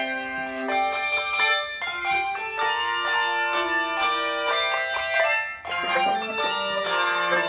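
Handbell choir playing a holiday piece: many bells struck in quick succession, their notes ringing on and overlapping into full chords.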